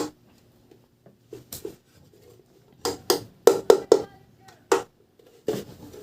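Metal housing of an LED strobe light being tapped, in a series of short, sharp, uneven knocks: the body is metal, not plastic.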